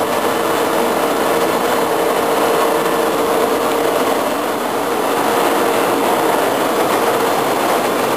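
Steady mechanical drone of background machinery with a constant mid-pitched hum, unchanging throughout.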